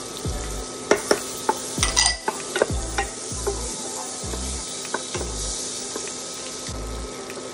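Butter sizzling as it melts in a nonstick pot, stirred with a wooden spoon that knocks against the pot several times, mostly in the first half.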